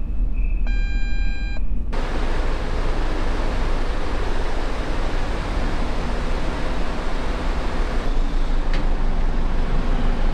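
Steady deep rumble and rushing noise of a ferry's car deck. A short electronic chime sounds about a second in, and a louder rushing noise cuts in suddenly about two seconds in and holds steady.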